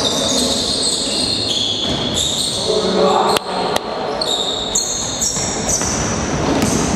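Basketball game in a gym: a basketball bouncing on the wooden floor, with two sharp knocks a bit over three seconds in, players' voices, and the echo of a large hall.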